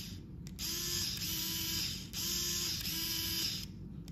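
Hawkeye 3.6 V cordless screwdriver's small electric motor whirring at no load in short bursts of about a second and a half as its switch is pressed and released: one run ends just at the start, then two more follow. Each run rises briefly in pitch as the motor spins up and falls as it stops.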